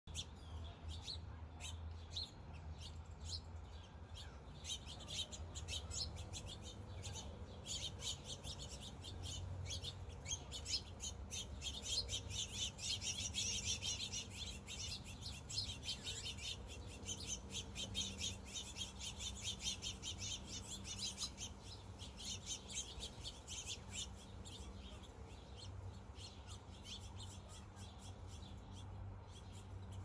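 A flock of house finches chirping constantly in rapid short calls, busiest around the middle.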